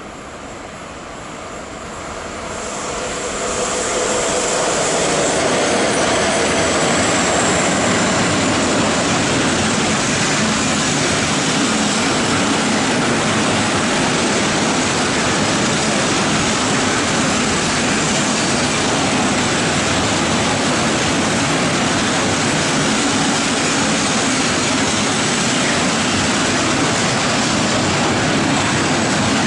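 Freight train of lorry trailers on rail wagons passing close by, its noise building over the first few seconds into a steady, loud rush of wheels on rail that holds to the end.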